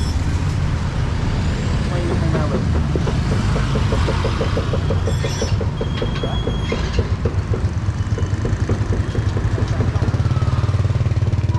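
Street traffic with small motorbike engines running close by: a steady low engine hum, with a fast, even puttering pulse through the middle and toward the end, over background voices.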